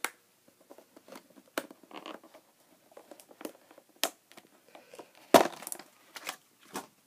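A socket set being handled: irregular clicks, knocks and rustling, with the loudest knock about five and a half seconds in.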